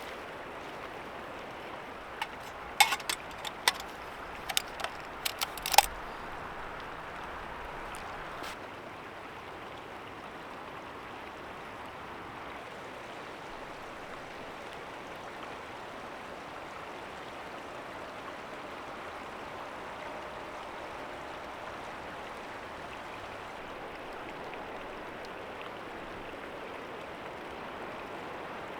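Creek water flowing with a steady rush. A quick cluster of sharp clicks or knocks comes a couple of seconds in, with one more a little later.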